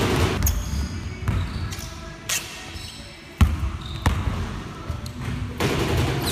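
Basketballs bouncing on a gym floor during dribbling drills: irregular thuds, the loudest about three and a half seconds in, with short high squeaks between them.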